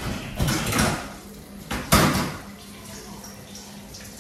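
Oven-baked sweet potato fries being shifted on a metal baking tray: two short bursts of scraping and rattling, about half a second and two seconds in, over a faint steady hum.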